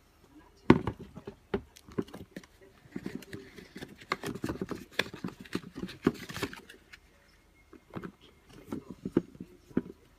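Handling noise from a pair of Air Jordan 11 sneakers being picked up, turned and set down by hand: irregular knocks and taps, the loudest less than a second in, with a stretch of rustling in the middle.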